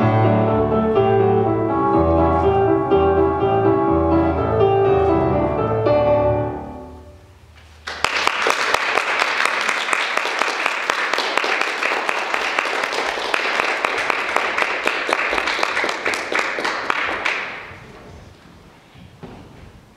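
Piano music playing, fading out about seven seconds in. About a second later an audience applauds for roughly nine seconds, dying away near the end.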